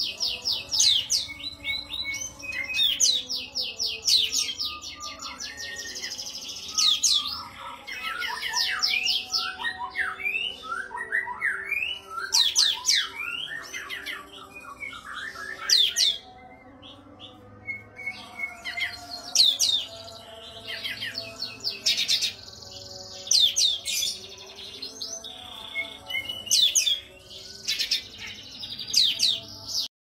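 Caged olive-winged bulbul (kapas tembak) singing steadily, a fast run of sharp chirps and quick rising and falling whistled notes, with a brief pause about halfway through.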